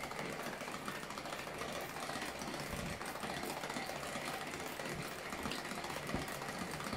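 Tupperware Speedy Chef 2 hand-cranked whipper turning steadily, its plastic gears giving an even whirring rattle as it whips cream into chantilly.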